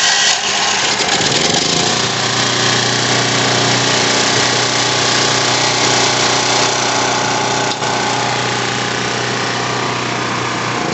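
Champion 4000-watt generator's 196cc single-cylinder engine running steadily, seconds after starting, on its freshly cleaned carburetor.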